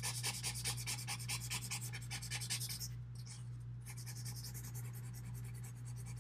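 Graphite being rubbed and blended on drawing paper with a torn-paper blending stump: quick back-and-forth scrubbing strokes, about six a second, that pause about three seconds in and resume more softly.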